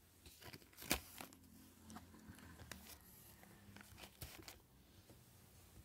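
Faint, scattered clicks of a laptop keyboard and touchpad as a flight number is typed in and a suggestion chosen; the sharpest click comes about a second in.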